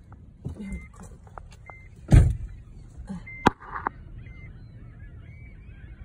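Gulls calling from a flock overhead, heard through the windshield of a parked car as a scatter of short squeals that grows busier after about four seconds. A dull thump about two seconds in and a sharp click about a second later stand out above the car's low rumble.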